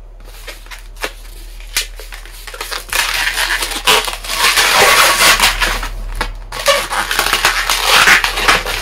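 Latex modelling balloons squeaking and rubbing against each other and against the hands as they are twisted and locked together. A few soft clicks at first, then steady squeaky rubbing from about three seconds in.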